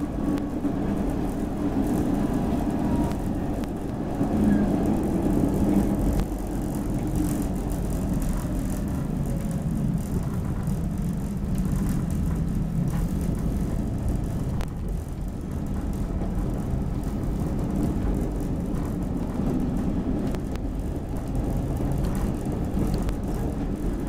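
Steady low rumble of a CTA 2600-series rapid transit car running at speed, heard from inside the car.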